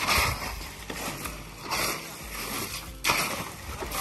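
A hoe and a shovel scraping and chopping through wet concrete mix, in repeated strokes about a second or so apart. About three seconds in, water from a bucket starts splashing onto the mix.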